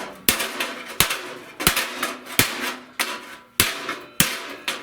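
Hammer blows on a steel sheet-metal radiator support piece, about seven strikes at a steady pace of roughly one every two-thirds of a second, each with a short metallic ring. The panel is being hammered straight to bring its end out to the measured length.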